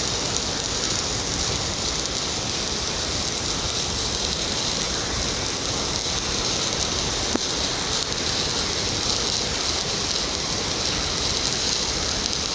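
Steady crackling sizzle of a stick (SMAW) welding arc as the electrode burns along a carbon steel pipe joint.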